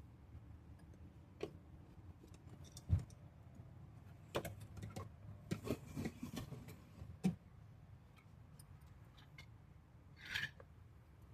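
Scattered faint clicks, knocks and light rattles of car door window parts being handled and worked loose. There is a dull knock about three seconds in, a run of clatter in the middle, and a brief higher-pitched sound near the end.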